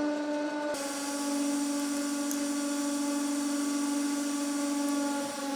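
150-ton hydraulic press's pump motor running with a steady whine. Under a second in, its pitch drops slightly and a hiss joins it.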